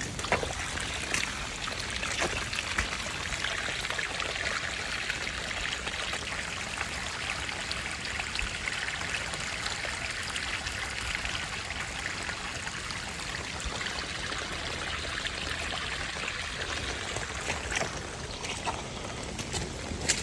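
Steady rush of running water with a trickling edge, with a few faint clicks near the start and near the end.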